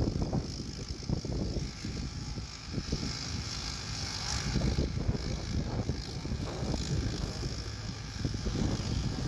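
Old tractor engine running under load as it pulls a weight sled, a low, uneven engine sound.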